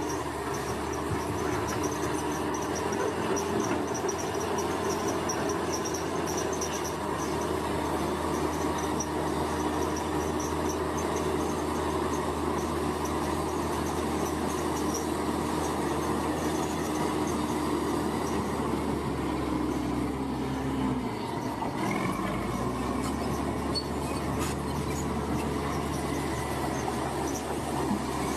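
Heavy construction machinery's diesel engine running steadily, its low note dipping and shifting briefly about three-quarters of the way through, with a faint high chirring during the first half.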